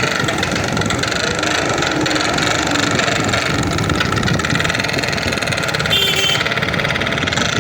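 Motorcycle engine running steadily, with a toy pipi horn fitted into its exhaust silencer giving a steady tone over the engine.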